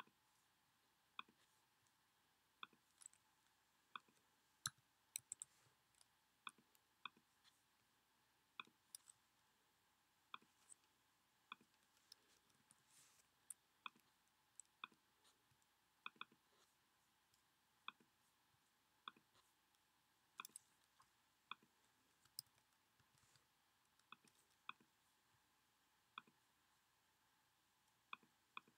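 Faint, scattered clicks of a computer mouse and keyboard keys as a spreadsheet formula is entered, about one every second or so, some in quick pairs.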